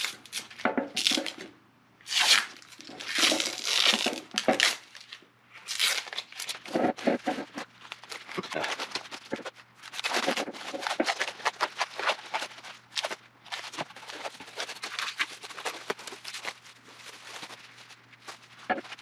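Blue painter's tape being peeled and torn off, and clear plastic wrap crinkling as it is pulled away from a vase, in irregular bursts of tearing and rustling.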